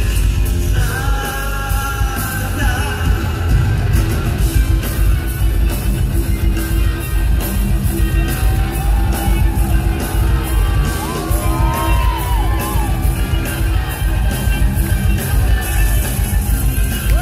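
Live heavy progressive metal from the band: distorted guitar, drums and keyboards playing loud with a heavy low end, and a sung vocal line over them, heard from the audience in a concert hall.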